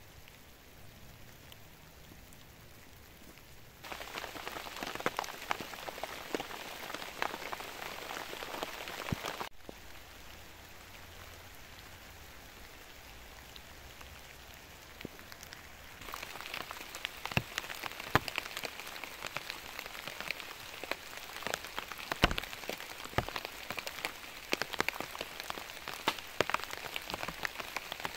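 Heavy rain falling in a forest, a steady hiss full of sharp individual drop strikes. It is quieter for the first few seconds, louder from about four seconds in, quieter again at about nine and a half seconds, and louder again from about sixteen seconds in.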